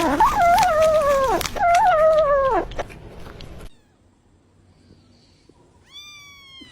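A cat yowling in long, wavering calls, twice, the second trailing off downward. Near the end, after an abrupt change of clip, a single higher-pitched meow.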